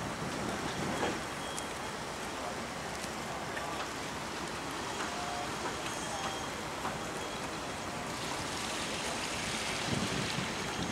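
Steady wind noise on an open quayside, with gusts rumbling on the microphone near the end.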